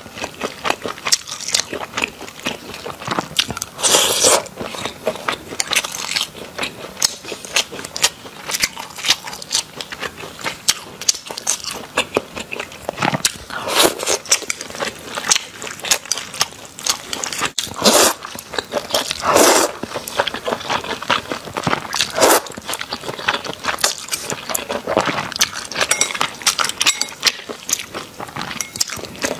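Close-miked eating of noodles: wet chewing with quick mouth clicks and smacks throughout, broken every few seconds by a louder, longer slurp.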